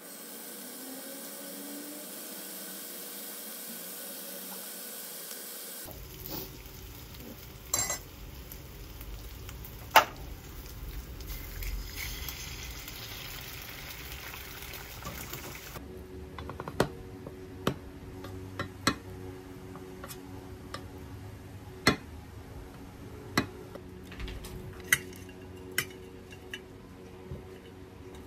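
Bacon sizzling in oil in a frying pan, with a few sharp knocks of a utensil against the pan. About halfway through this gives way to sharp metal clinks of cutlery against stainless-steel lunch boxes, roughly one a second.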